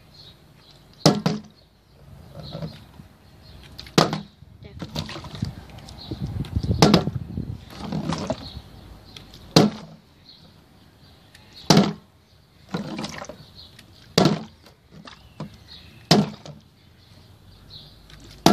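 Plastic drink bottle flipped and landing on wooden deck boards: a sharp knock every two to three seconds, with softer rustling between the landings.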